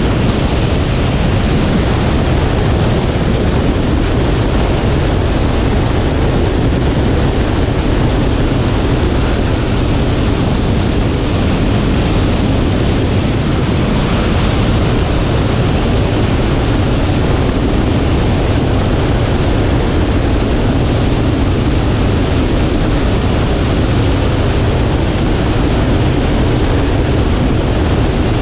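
Honda S2000 cruising at a steady speed: an even, low rush of wind and road noise that holds constant, with no revving or gear changes.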